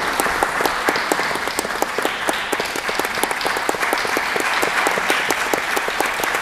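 Audience applauding, a dense steady clapping of many hands, as entrance applause while the performers walk on stage and bow.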